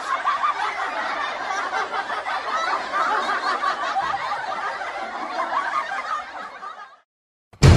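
Laughter from a group of people, many voices overlapping like a sitcom laugh track. It tapers off and stops about seven seconds in.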